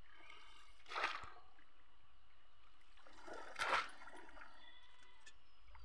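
Two short splashes of shallow pond water, about a second and about three and a half seconds in, as a bamboo plunge-basket fish trap is pushed down into the water.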